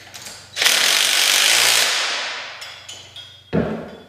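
Cordless impact driver running bolts into aluminium davit brackets in one long burst, then winding down. A short thump follows near the end.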